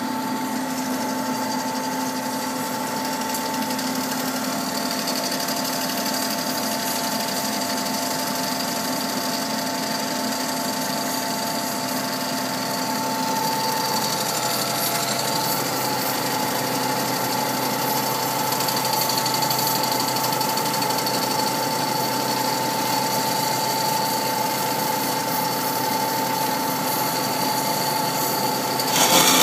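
Bomar Individual 510.330 GA automatic horizontal metal-cutting bandsaw running in automatic mode, with a steady whine throughout. A lower hum drops out about halfway through, and the sound gets louder and harsher right at the end.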